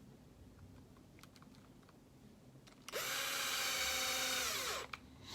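Power drill driving a small screw into a plastic RC axle housing: after a few faint ticks, the motor spins up about three seconds in, runs steadily for about two seconds, then winds down.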